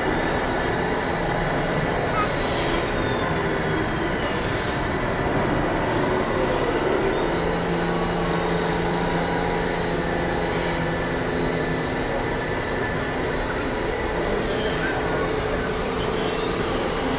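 Steady din of a busy exhibition hall with radio-controlled model trucks running on the layout. About seven seconds in, a low steady drone of several tones joins it.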